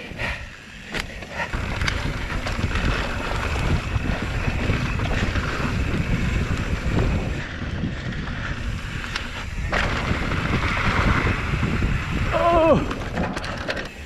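Hardtail mountain bike ridden over a rough dirt trail: tyres rolling and the bike rattling over bumps, with wind buffeting the microphone. A brief wavering whine comes near the end.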